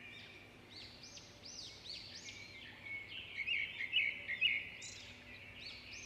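Forest ambience of several small birds chirping at once, quick rising-and-falling chirps overlapping one another, busiest and loudest about halfway through.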